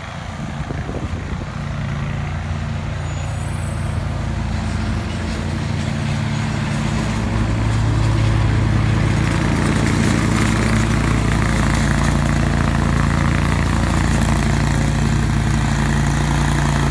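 Lawn mower engine running steadily, growing louder about seven seconds in and then holding.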